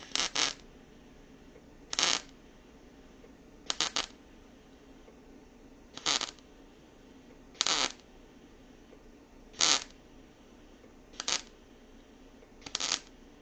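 Electric arc welder striking in short crackling bursts, eight of them about every one and a half to two seconds, some broken into two or three quick pulses. The welds are laid in short stitches to build up metal and bridge an old hole.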